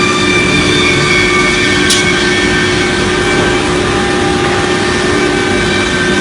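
CNC router with a 6 kW HSD spindle running: a loud, steady machine noise with several steady whining tones, and a brief sharp tick about two seconds in.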